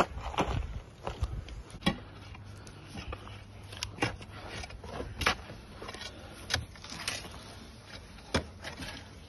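Shovel digging in a trench: irregular scrapes and knocks of the blade cutting into soil, about one every second or so, over a low steady hum.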